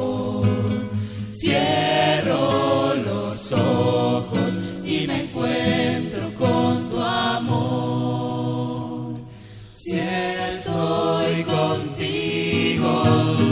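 Choir of voices singing a Sai devotional song, with a short break between phrases about nine seconds in.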